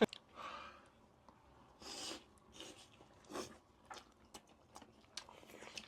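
Quiet eating sounds at the table: chewing and scattered short clicks and rustles, with a brief louder noise about two seconds in.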